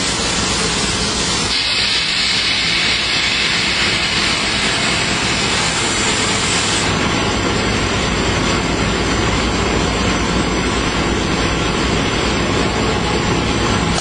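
Toilet roll and kitchen towel converting line running: loud, steady industrial machine noise with a hiss, which grows brighter for a few seconds from about two seconds in.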